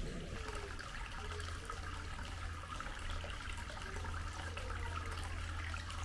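Hot-spring water pouring steadily into a bath, a continuous trickling splash, with a steady low hum underneath.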